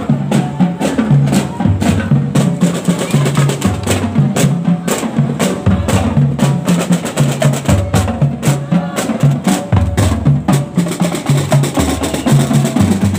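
Marching drumline of snare, tenor and bass drums playing a steady, loud marching beat, with crisp stick strokes over repeated bass drum hits.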